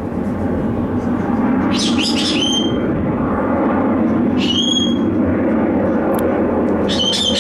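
Steady roar of the jet engines of the Boeing 747 carrier aircraft flying Endeavour past, swelling slightly about a second and a half in. Short high bird chirps come three times over it.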